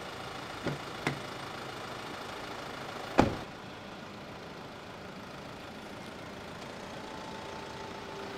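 Nissan Navara ute's engine running steadily as it pulls away towing a boat trailer. There are two small clicks about a second in, and a car door shuts with a loud thump about three seconds in.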